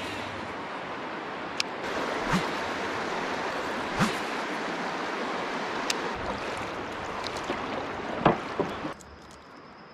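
River water rushing steadily, with a few sharp clicks and knocks scattered through it. The sound drops off abruptly about nine seconds in.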